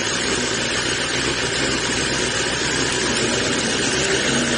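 BMW S1000RR superbike's inline-four engine idling in neutral, heard close up from the bike itself; its pitch begins to rise near the end.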